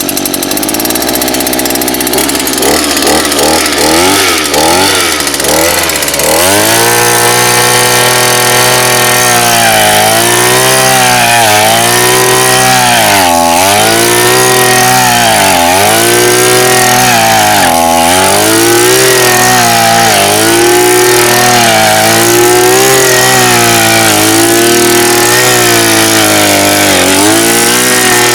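Gasoline earth auger's small engine running: unsteady at low speed at first, then revving up about six seconds in. Its pitch repeatedly dips and recovers every couple of seconds as the auger bit loads up digging into the soil.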